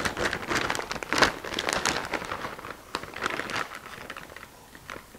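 Plastic bag of shredded cheese crinkling as a measuring cup scoops cheese out of it, in irregular rustling bursts that die down after about three and a half seconds, leaving a couple of faint clicks.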